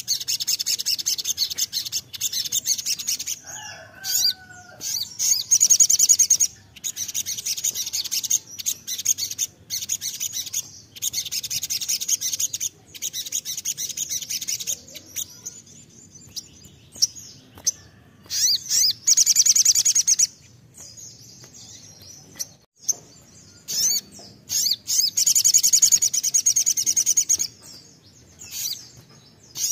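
Male olive-backed sunbird (sogon) singing in full, rapid 'nembak' song: bouts of fast, high trilling lasting a few seconds each, with short pauses between them.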